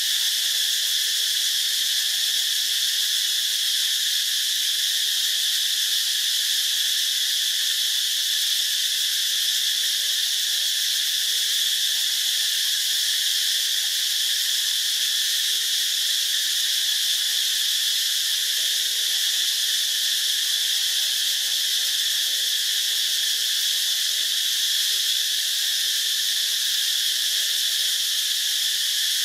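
Dense insect chorus, a steady high-pitched drone that does not change.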